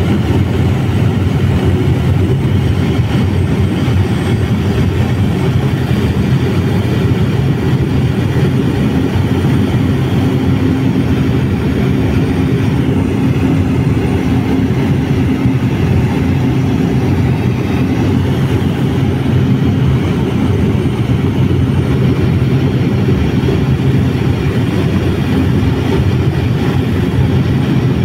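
Loud, steady drone of an aircraft in flight, heard from on board. A low hum rises a little above the drone for a few seconds in the middle.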